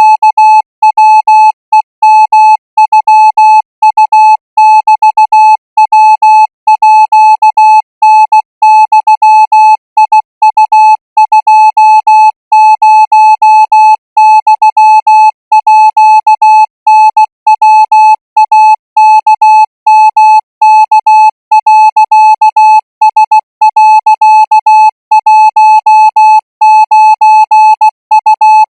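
Thai Morse code practice signal sent at 20 words per minute: a single steady beep keyed on and off in short dots and longer dashes with brief gaps between characters.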